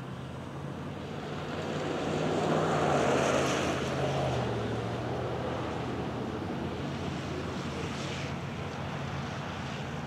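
Outdoor background noise of a passing vehicle: a rush that swells about two to three seconds in and slowly fades, over a steady low hum.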